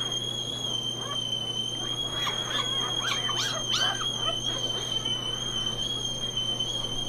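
Newborn Portuguese water dog puppies give a few short, high squeaks around the middle, over the steady high whistle of a kettle.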